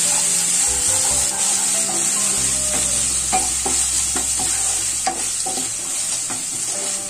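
Onions and Schezwan chutney sizzling in a hot nonstick kadai while a wooden spatula stirs them, with a steady frying hiss and, from about the middle, repeated short scrapes of the spatula against the pan.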